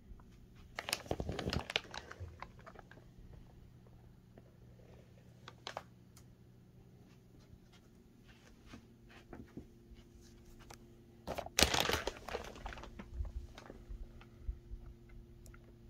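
Plastic bags crinkling as cylinder heads sealed in them are handled and shifted, in two main bouts about a second in and again near the end, with scattered light clicks and rustles between.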